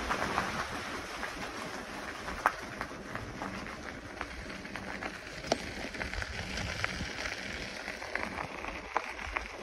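Bicycle tyres rolling over a gravel trail: a steady crunching hiss with scattered sharp pops and clicks of stones, the loudest about two and a half, five and a half and nine seconds in.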